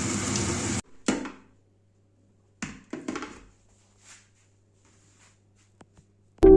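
A steady hiss cuts off abruptly under a second in. A few soft knocks and handling noises follow, with a faint low hum, typical of kitchen work. Music starts right at the end.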